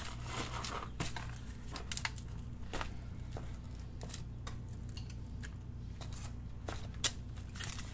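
A person getting up off cardboard on a garage floor and moving about: scattered light clicks and rustles, with one sharper click about seven seconds in, over a steady low hum.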